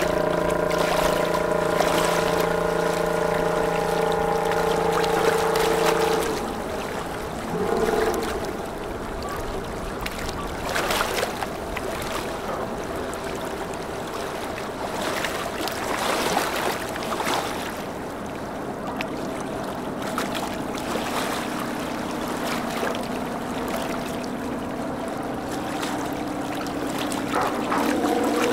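Boat engine running with a steady drone that cuts off about six seconds in. After that, the swash of river water and wind is left, and a faint engine hum comes back near the end.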